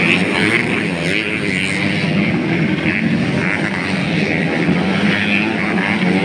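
Motocross dirt bike engines racing along a dirt track, a continuous loud buzz whose pitch rises and falls as the riders rev through the course.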